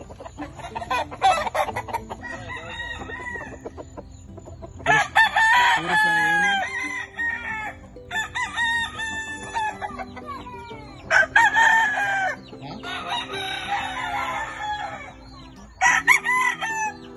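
Gamefowl roosters crowing in turn: three loud crows, each falling in pitch at the end, about five, eleven and sixteen seconds in, with fainter crowing between.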